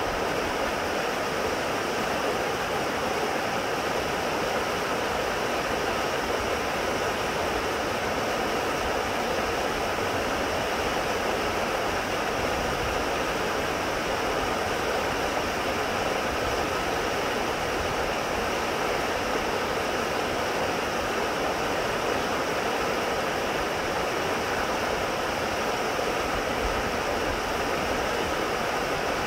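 Creek rapids: fast, shallow water rushing over rocks and boulders in a steady, unbroken wash.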